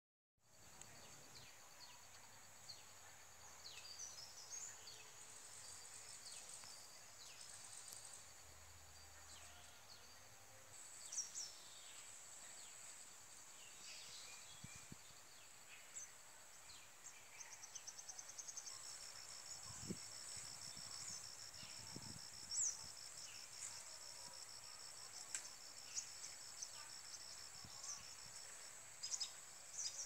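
Faint outdoor insect chorus: steady high-pitched trilling, with a fast pulsing trill that starts a little past halfway and then runs on steadily. Short high chirps are scattered throughout.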